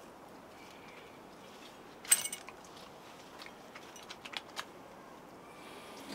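A sharp metallic clink with a brief ringing about two seconds in, then a few lighter clicks and taps a couple of seconds later, over faint background.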